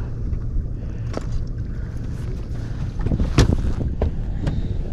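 Steady low rumble of wind and water on an open boat, with a few light clicks and one loud sudden noise about three and a half seconds in.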